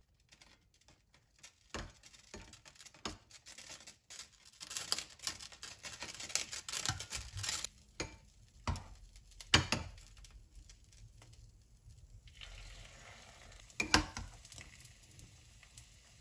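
Egg-battered perilla leaf pancakes (kkaennip-jeon) being laid into a hot oiled pan with metal tongs: scattered clicks and knocks of the tongs, two of them sharp and loud, with wet handling noise, and a steady sizzle of frying taking hold about three quarters of the way through.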